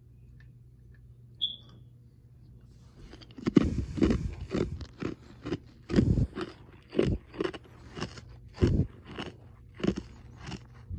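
A person chewing ice, crunching it between the teeth in a run of loud, irregular crunches that starts about three and a half seconds in, close to the microphone.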